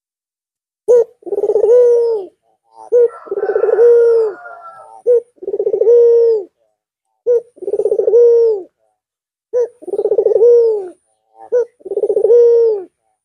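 Albino Barbary dove (puter) cooing: six calls about two seconds apart. Each call is a short note followed by a longer, rolling coo that drops in pitch at its end.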